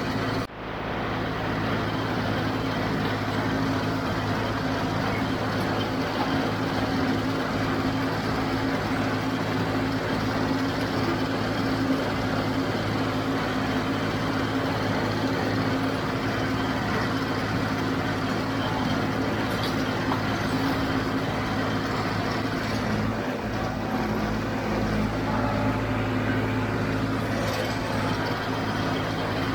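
John Deere 5055D tractor's diesel engine running steadily under load while pulling a JD 348 square baler through the hay.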